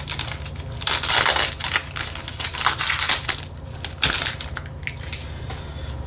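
Foil Pokémon booster-pack wrapper crinkling and tearing as it is ripped open by hand, in a run of sharp rustling bursts, loudest about a second in and again about four seconds in.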